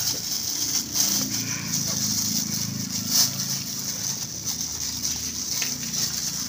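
Thin plastic bag crinkling and rustling in short crackles as it is gathered and tied around a fruit cluster, over a steady high-pitched buzz and a low drone.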